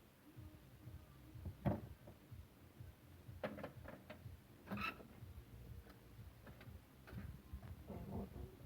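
Scattered faint clicks and clunks of hand tools and metal engine parts being handled. There is a louder knock about two seconds in, a quick cluster of clicks around three and a half seconds, and a ringing metallic clunk near five seconds.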